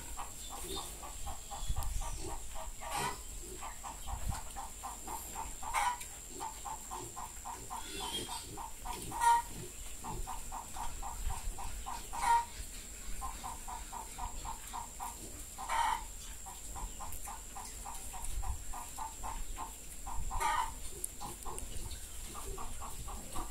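A chicken clucking in long, rapid runs of short clucks, with a louder call every three seconds or so.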